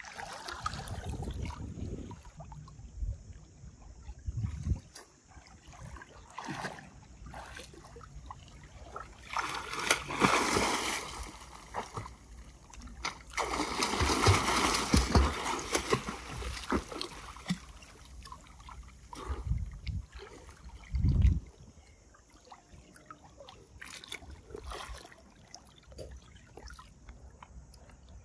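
Water splashing and sloshing in irregular bursts, with the longest, loudest splashing about ten seconds in and again about fourteen to sixteen seconds in, and a dull thump later on.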